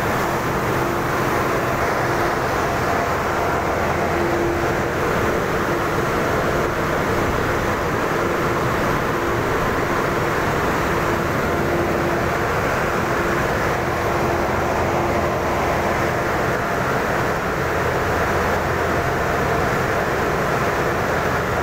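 Steady industrial machinery noise, an unbroken din with a faint steady hum in it.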